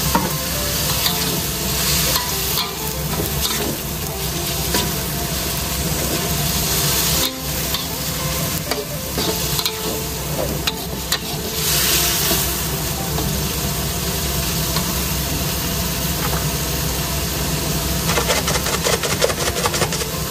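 Chicken and petai beans sizzling in a wok while a metal spatula stirs them, scraping and clicking against the pan, the scrapes coming thick and fast near the end. A steady low hum runs underneath.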